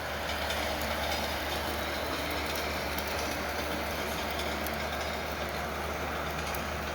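Recorded freight-train rolling sounds playing steadily from a small Bluetooth speaker that rides in a model train car.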